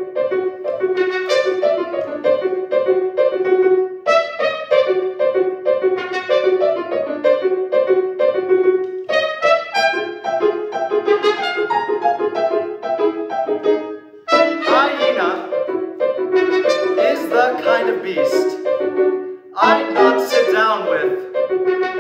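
Trumpet with piano accompaniment playing a lively concert piece: quick repeated notes at first, then from about two-thirds of the way in, wavering, bending notes.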